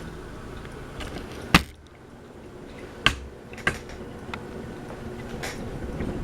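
Harbor Breeze Aristocrat ceiling fan running on high with a steady hum, broken by four sharp, irregularly spaced clicks, the first the loudest.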